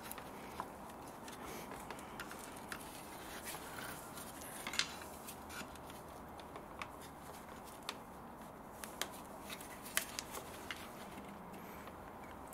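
Scattered small clicks and taps of a screwdriver prying at the air-con condenser's mounting clips and bracket, irregularly spaced, with a somewhat louder knock about five seconds in, over a faint steady background.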